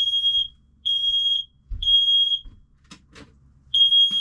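Smoke alarm sounding: three loud, high beeps about a second apart, a pause, then the pattern starting again near the end. It was set off by smoke from a frying pan, which the cook guesses got too hot.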